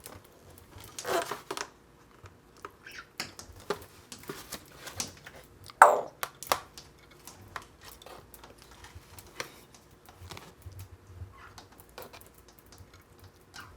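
African grey parrot's beak tapping and nibbling at a metal plaque: irregular light clicks and taps, with one louder, sharper sound about six seconds in.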